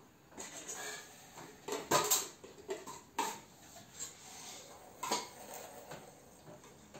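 Plastic cups knocking and clacking together as they are stacked into a tower: a handful of light knocks, the loudest about two seconds in.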